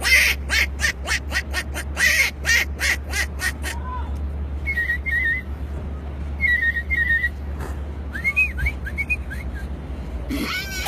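A man imitating animal sounds with his mouth: a quick run of sharp clicks for about three and a half seconds, then two short warbling bird-like whistles, and a few gliding whistles near the end.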